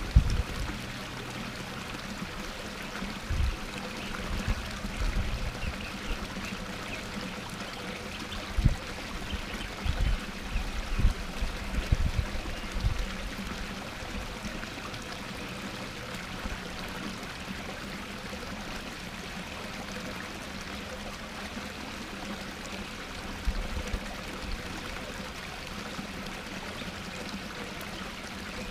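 A small garden-pond waterfall splashing steadily over rocks into the pond, with a few short low rumbles, mostly in the first half.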